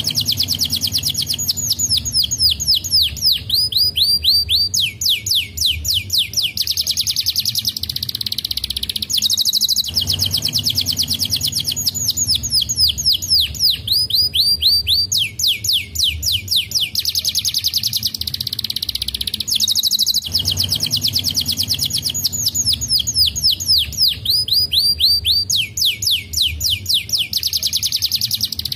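Domestic canary singing continuously in fast trills and rolls of high sweeping notes. The same song phrase repeats about every ten seconds.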